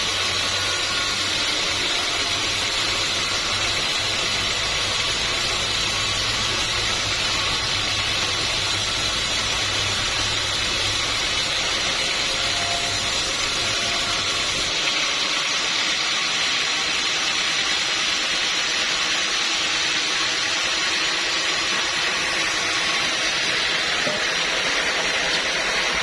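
Sawmill machinery running steadily with a constant hiss. A low hum underneath stops about halfway through.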